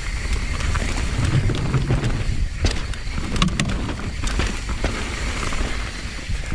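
Mountain bike riding down a bike-park trail: wind buffeting the microphone over steady tyre and bike noise, with a few sharp knocks from about two and a half to three and a half seconds in.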